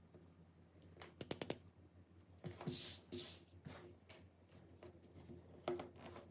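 Small clicks and taps from handling phone parts and tools during repair, with a short burst of noise near the middle, over a faint steady low hum.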